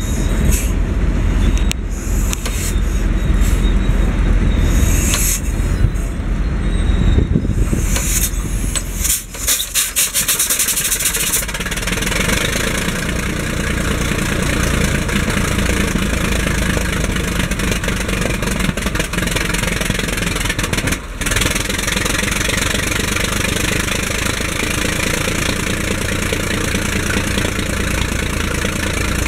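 1917 Holt 120 crawler tractor's engine being started. It is rough and uneven with scattered clatter at first, dips briefly about nine seconds in, then settles into steady running from about twelve seconds in.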